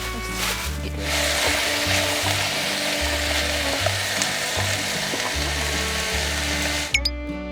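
Food frying in a hot pan, a steady dense sizzle that cuts off abruptly near the end, with background music underneath.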